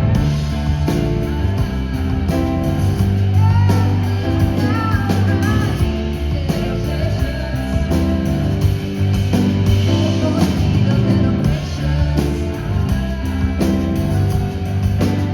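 Live pop-rock band music: guitar over steady bass notes, with a singing voice coming in and out.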